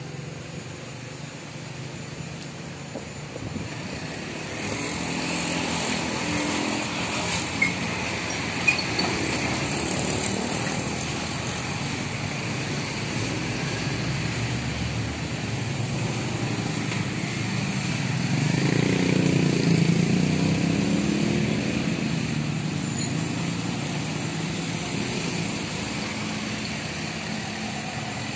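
Road traffic at a level crossing: motorcycles and cars running past over the rails, the loudest one going by about two-thirds of the way through. There are two short sharp clicks about a second apart roughly a quarter of the way in.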